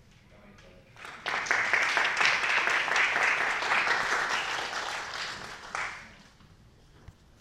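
Audience applauding: a dense patter of many hands clapping that starts abruptly about a second in, carries on for about five seconds and dies away near the end.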